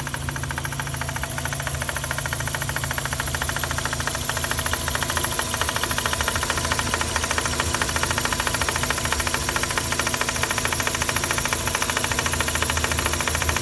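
Mazda RX-8's 13B-MSP rotary engine idling with a rapid, continuous clattering rattle, caused by excess play in the secondary shutter valve (SSV) actuator rod. The rattle is a noise annoyance rather than a fault that harms the engine.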